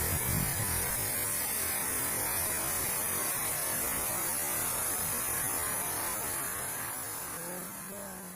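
Steady rushing noise of falling water from a waterfall, fading out near the end.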